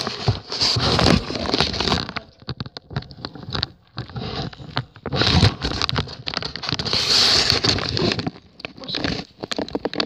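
Handling noise of a tablet moved about close to its microphone: irregular rustling and scraping bursts, loudest about a second in and again near seven seconds, with many small clicks between.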